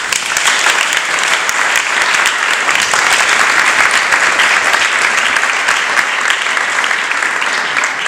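Small seated audience applauding with steady, dense clapping.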